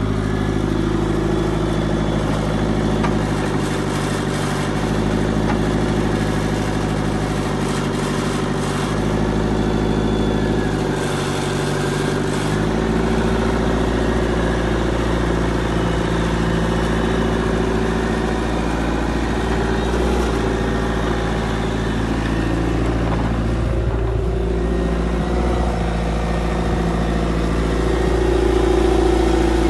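Wheeled excavator's diesel engine running steadily, its note changing several times and shifting about twelve seconds in.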